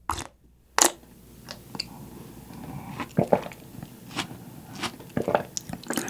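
A person slurping milky beef-bone broth straight from a ceramic bowl, two sharp sips in the first second, then swallowing and a string of wet lip smacks and mouth clicks.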